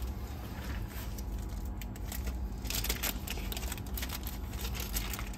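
Light clicks and rustling of small parts being handled on a workbench, with a denser rustle about three seconds in, over a steady low hum.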